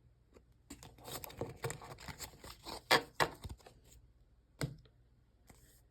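Trading cards and packaging being handled: a run of rustling and light clicks and taps, loudest around the middle, then a single click and a brief rustle.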